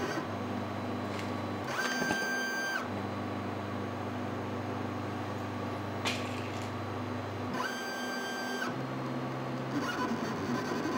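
Stepper motors of an X-Carve CNC router driving the gantry through a dry run of the toolpath, a steady hum that shifts pitch in steps as each move changes. A higher whine joins twice, each time for about a second, near two and eight seconds in.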